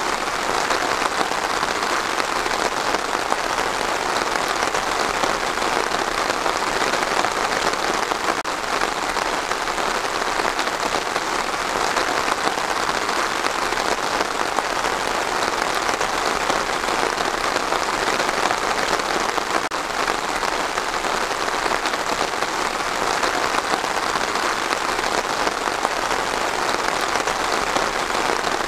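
Steady rain falling on trees, an even patter that holds at the same level throughout.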